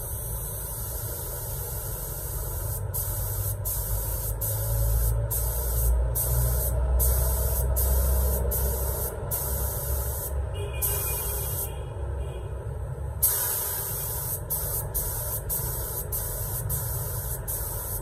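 Iwata gravity-feed spray gun with a 1.3 mm nozzle spraying with a steady hiss, cut by brief breaks about every second as the trigger is let off. There is a pause of about three seconds a little after the middle, and a low rumble runs underneath.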